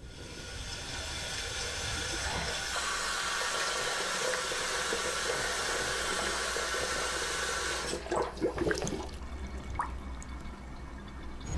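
Water rushing steadily, a bright hiss that builds over the first couple of seconds and cuts off suddenly about eight seconds in, followed by a few soft knocks.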